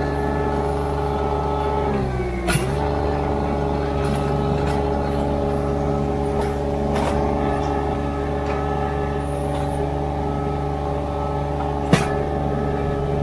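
Ditch Witch SK800 mini skid steer's engine running steadily at high throttle. About two seconds in, its pitch sags briefly and recovers, as when the hydraulics take load, with a knock. A sharp clank comes near the end.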